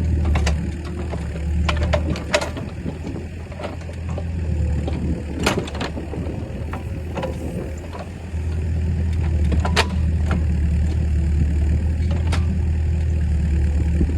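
An engine running steadily at a low hum, with scattered knocks and clanks over it; the engine sound drops back for a few seconds and picks up again about eight seconds in.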